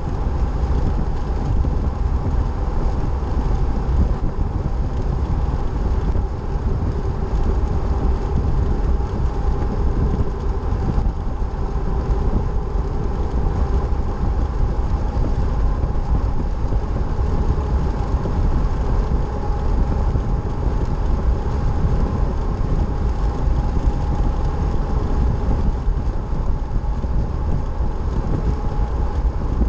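Steady road noise of a vehicle driving at highway speed, tyre and wind noise with a deep rumble and a faint steady whine over it.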